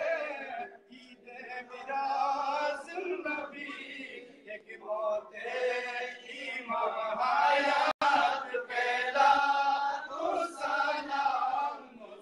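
Unaccompanied male chanting of an Islamic devotional naat, sung in phrases with short breaths between them. The sound cuts out for an instant about eight seconds in.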